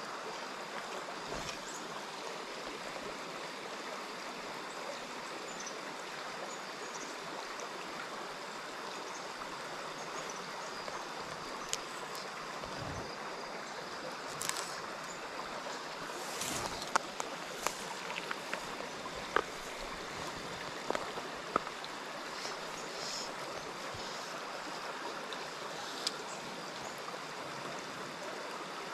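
Small rocky stream running steadily, an even wash of flowing water. Scattered sharp light ticks come through it around the middle.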